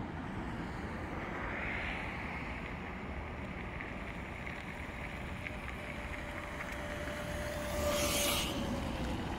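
Electric scooter with an 800 W brushed motor riding up and passing close by: its motor whine settles into a steady tone from about halfway and drops slightly in pitch as it goes past, with a brief louder rush near the end. Wind noise on the microphone.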